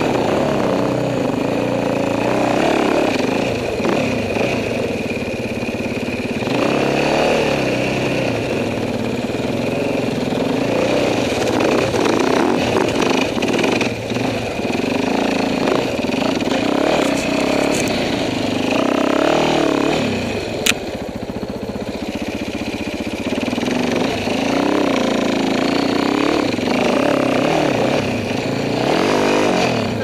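2010 Husaberg FX450's four-stroke single-cylinder engine running as the dirt bike is ridden, revving up and easing off again and again. A single sharp click about twenty seconds in.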